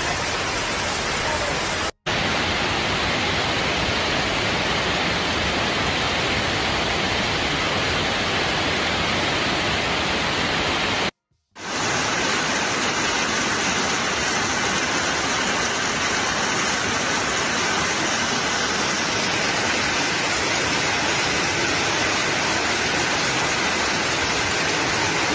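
Torrent of muddy floodwater rushing past, a steady heavy noise with rain mixed in. It cuts out briefly twice.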